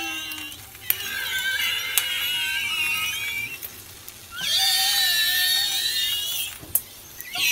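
High-pitched, wavering squealing from food frying in a pan, like a squeaking animal. It comes in bouts of one to three seconds, with short gaps and a few sharp clicks between them.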